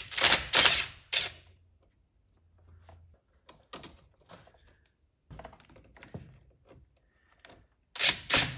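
Cordless impact driver on a car battery terminal nut, run in short rapid bursts for about the first second and again near the end, backing the nut slowly off the terminal bolt. In between come faint light clicks as the metal terminal clamp is handled.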